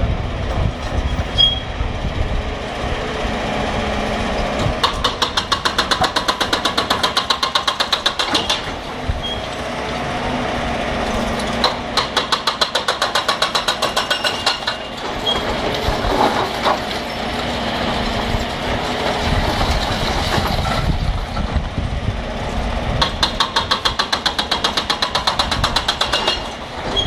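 A tracked excavator's hydraulic breaker hammering brick walls in three spells of rapid, evenly spaced blows, a few seconds each. Between the spells the machine's engine runs steadily and broken masonry falls.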